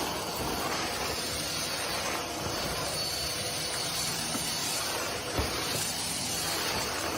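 Steady hissing noise with no clear rhythm, and one soft knock about five seconds in.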